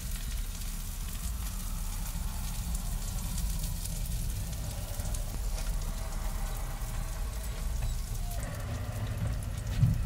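Food sizzling on a hot griddle: a steady, faint crackling over a low hum, with a brief thump at the very end.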